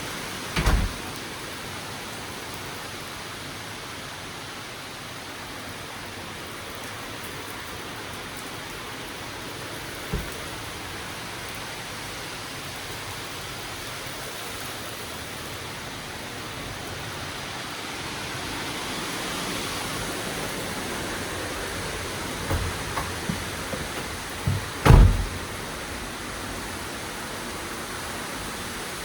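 Severe thunderstorm rain and wind making a steady hiss, broken by a few short, low thumps. The thumps come about a second in, around ten seconds in, and in a cluster near the end, the loudest of them just before the end.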